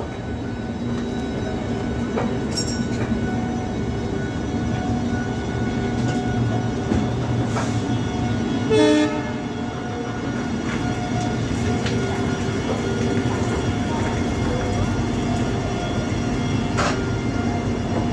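Passenger express train running slowly along a station platform, heard from an open coach door: a steady rumble of wheels on rails. A short horn blast sounds about nine seconds in.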